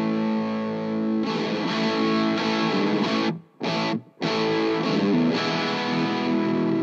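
Electric guitar played through an Amptweaker Fat Rock distortion pedal: heavily distorted chords held and changed, with two short, abrupt stops a little past halfway.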